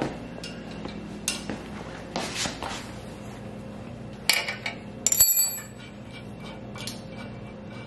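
Steel hydraulic fittings and hand tools clinking and tapping against the steel frame of a QuickJack lift as the fittings are fitted to the cylinder ports: scattered light knocks, with two sharper metallic clinks that ring briefly about four and five seconds in. A steady low hum runs underneath.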